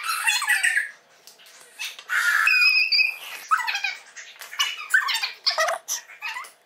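Squeezed plastic glitter-glue bottle squeaking and sputtering as glue and air squirt out of the nozzle, in short irregular spurts with a brief held squeal near the middle.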